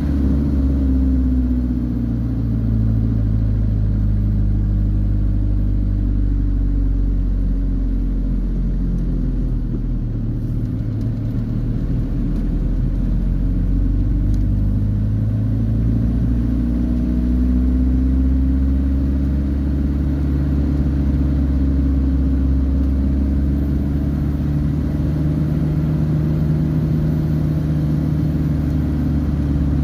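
A vehicle's engine running on the move, its pitch dropping over the first few seconds and climbing again past the halfway mark as it eases off and speeds up through the bends.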